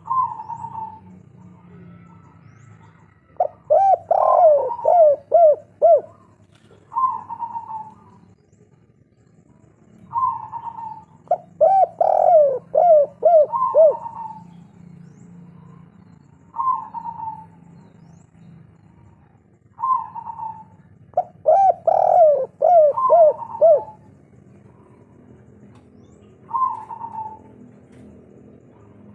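Spotted dove (tekukur) of the 'kuk 3' song type cooing. It sings three long phrases, each a run of about five quick arched coos, with shorter single coos between them.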